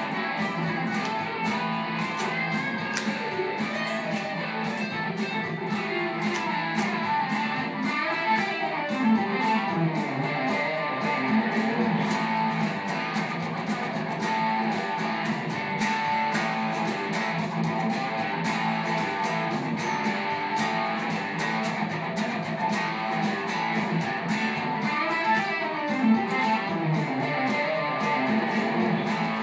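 Stratocaster-style electric guitar playing a simple rock riff of chords and single-note runs, along with a backing track with a steady beat.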